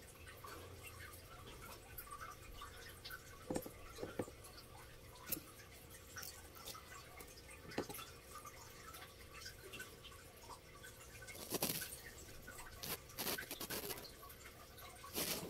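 Leopard gecko chewing a worm: scattered soft, wet clicks and crunches, coming thicker and louder in the last few seconds.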